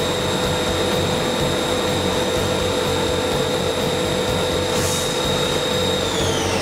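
Kondia A-10 CNC machining centre running: a steady high-pitched whine with a lower hum over a hiss. Near the end the whine drops in pitch.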